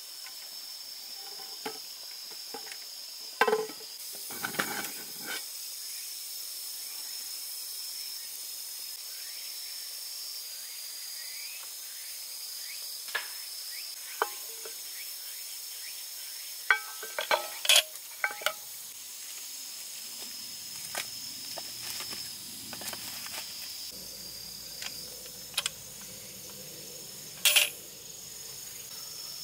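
Metal clinks and knocks from a Captain Stag round hangō (camp mess tin) and its hanger being handled over a campfire. The clinks come in a few short clusters, with the loudest about four seconds in, around seventeen seconds in, and near the end. Under them runs a steady high insect trill.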